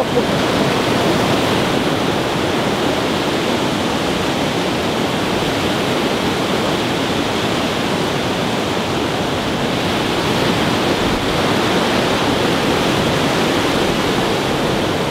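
Steady rushing of white-water river rapids.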